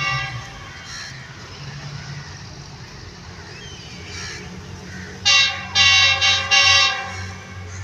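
Horn of a GEU40 diesel-electric locomotive hauling an approaching express train, sounded about five seconds in as three blasts, a short one followed by two longer ones.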